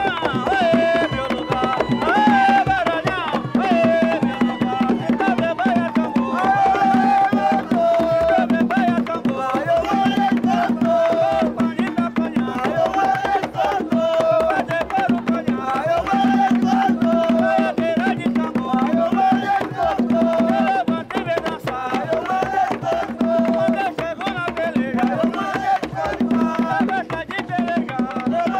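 Folk dance music: hand drums beating a steady, driving rhythm under voices singing a melody.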